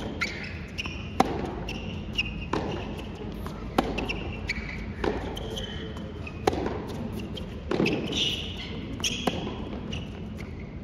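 Tennis rally on a hard court: sharp ball-on-racket strikes and bounces in a regular beat, about one every 1.3 seconds, with short high squeaks in between.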